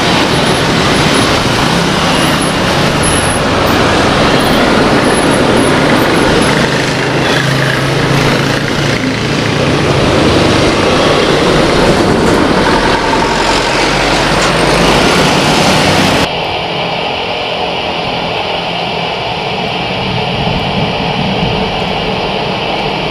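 GE90 turbofan engines of a Boeing 777-300ER running as the airliner taxis close by: a loud, steady jet noise with a low hum under it. About two-thirds of the way through it cuts suddenly to a quieter, thinner steady jet engine sound from a Boeing 737-900ER on the runway.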